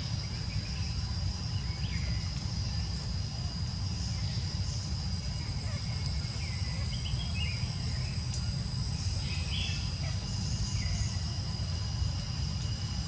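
Forest ambience: a steady high-pitched insect drone, with short chirps every second or two and a constant low rumble underneath.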